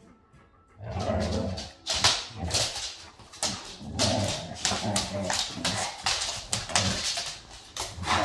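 Dogs growling and whining as they jostle, claws scrabbling and clicking on the hard floor, starting about a second in. This is excited, hormonal squabbling around a German shorthaired pointer bitch in heat.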